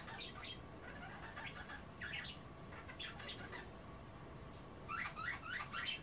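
Budgerigars chattering: short groups of chirps every second or so, with a quicker run of chirps near the end.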